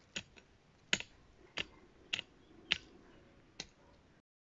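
Garden hoe chopping into stony soil: six sharp clicks about two-thirds of a second apart as the ground is loosened.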